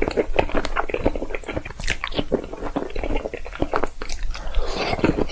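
Close-miked ASMR eating sounds of salmon being chewed: a rapid, continuous run of wet bites, chewing and mouth smacks.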